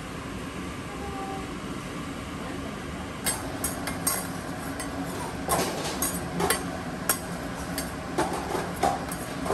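Two metal spatulas clacking and scraping against a steel griddle as eggs are worked on it: sharp, irregular clicks that begin about three seconds in, over a steady background noise.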